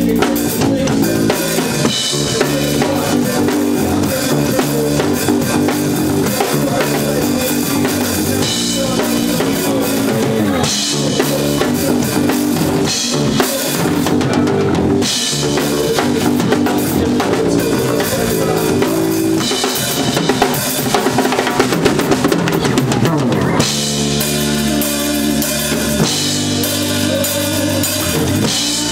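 Live band playing, with the drum kit loudest in the mix and the band's sustained pitched parts underneath.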